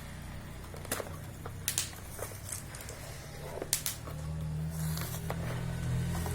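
A few scattered sharp clicks and taps from hands handling the keyboard and its packaging, over a low steady hum.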